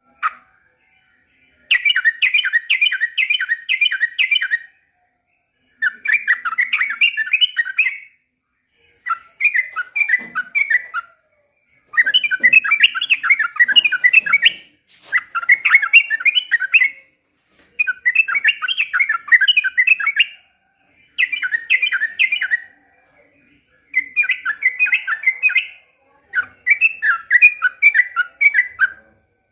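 Yellow-vented bulbul (trucukan) singing: about ten short, rapid bubbly phrases of warbled notes, each a second or three long, separated by brief pauses.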